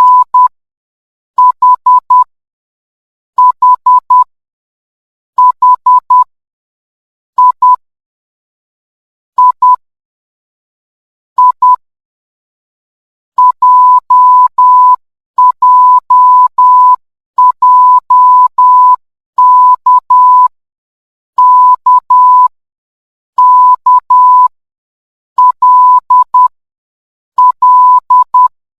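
Morse code sent as a steady electronic beep, keyed on and off into dots and dashes, one character at a time with about a second of silence between characters. The first characters are made of short dots only; from about halfway through they are longer, with dashes among the dots.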